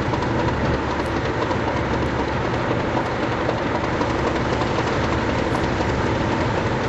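Class 37 diesel locomotive's English Electric V12 engine running steadily at low power as the locomotive creeps forward.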